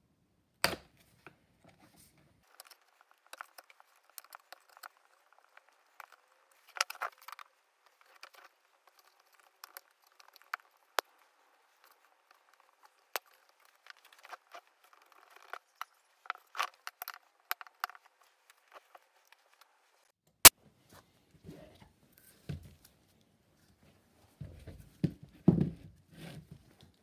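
Old upholstery tacks being prised out of a wooden chair frame with a flat-bladed tool: irregular metal clicks and short scrapes, with one sharp snap about two-thirds through as the loudest. Near the end, the old fabric cover and padding rustle as they are pulled away from the seat.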